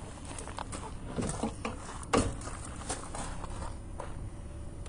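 Scattered knocks and clicks, the loudest about two seconds in, as a plastic pool skimmer body is handled and fitted against a fiberglass pool wall.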